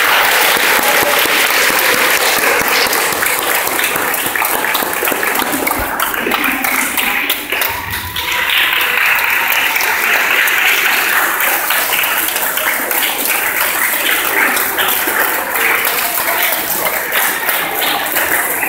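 Audience applauding steadily, with voices talking over the clapping.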